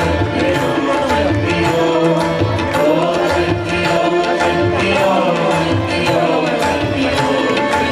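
Tabla playing a steady rhythm for a devotional bhajan, the bass drum's strokes bending in pitch, under sustained held notes of the accompaniment.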